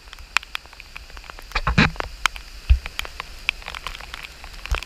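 Rain falling in a storm, with big drops ticking irregularly on a hard surface close to the microphone over a steady hiss. A louder rustling patch comes a little under two seconds in, and there are a couple of low thumps.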